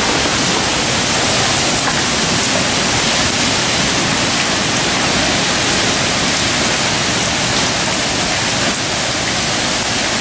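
Heavy tropical-storm rain pouring steadily, a loud even hiss with wind rumbling underneath.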